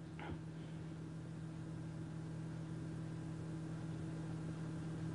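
Quiet room tone: a faint steady electrical hum under a soft hiss, with one small brief sound about a quarter of a second in.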